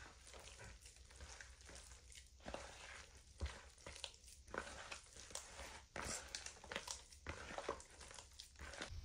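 Hands mixing and kneading a soft, wet yeast dough for pide in a plastic bowl: a faint, irregular run of short handling sounds as the dough is pressed and turned.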